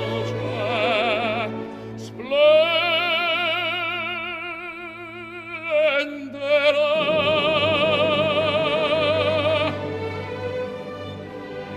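Operatic singing over orchestral accompaniment: a solo voice holds two long notes with wide vibrato, the second beginning about seven seconds in and ending near the tenth second.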